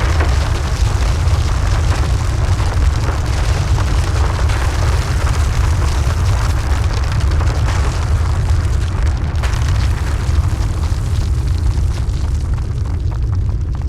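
A loud, steady low rumble with a rushing noise over it, unbroken by speech.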